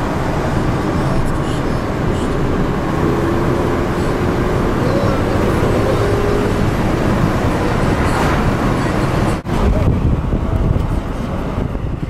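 Steady road and engine rumble of a moving car, heard from inside the cabin, with a brief break in the sound about nine seconds in.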